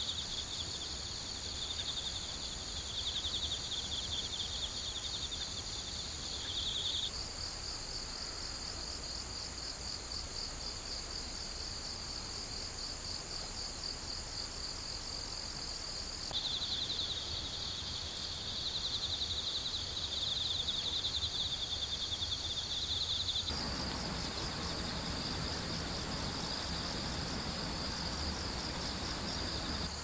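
A chorus of crickets and other insects trilling steadily in overlapping high-pitched, pulsing songs. The mix of songs changes abruptly a few times, and a soft rushing noise joins in for the last quarter.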